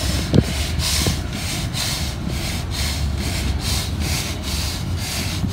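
Stiff-bristled push broom scrubbing granular oil-absorbent powder (flubber dust) back and forth over asphalt pavement: a rhythmic rasping scrape, about two to three strokes a second.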